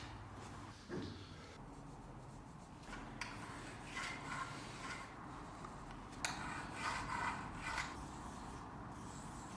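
Faint rubbing and scraping handling noises, with a few light knocks.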